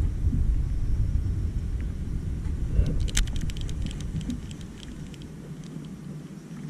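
Wind buffeting the camera microphone, a low rumble that eases off after about four seconds, with a quick run of sharp clicks and ticks about three seconds in.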